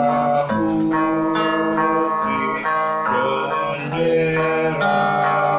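Acoustic-electric guitar strummed in chords through a small guitar amplifier, an instrumental passage in a song, the chord changing about every second.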